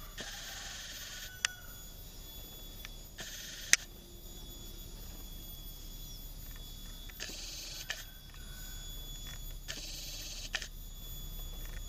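Video camera's zoom motor whirring in four short bursts, with a few sharp handling clicks, over a faint steady background hum.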